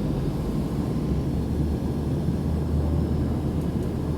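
Airliner cabin noise in flight: a steady low drone of the engines and rushing air, with no change.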